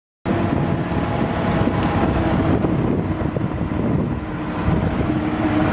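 Steady low rumble of vehicle noise with wind on the microphone, cutting in abruptly after a brief silence.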